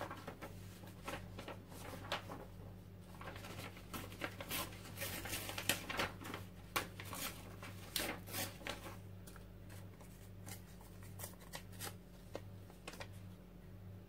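Paper scraps cut from old book pages rustling and crinkling as they are handled, in quick irregular bursts that are busiest in the middle, over a steady low hum.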